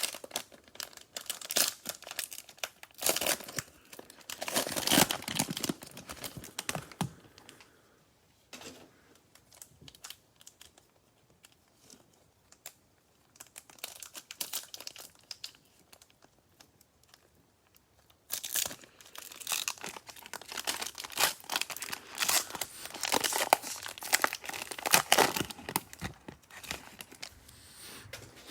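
Cellophane trading-card pack being handled and torn open, crinkling in two loud spells with a quieter stretch of faint rustling between.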